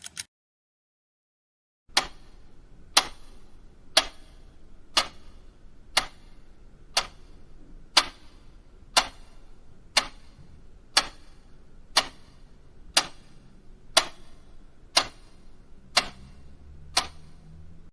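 Mechanical clock ticking at a steady one tick per second, starting about two seconds in after a silent gap.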